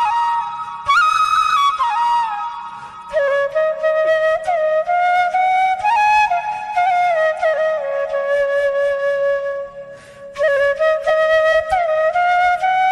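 Background music: a slow single-line melody of long held notes that slide from one pitch to the next, with a short dip about ten seconds in.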